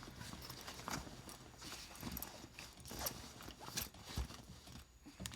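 Soft, irregular knocks, clicks and rustles of items being handled and packed into a bag.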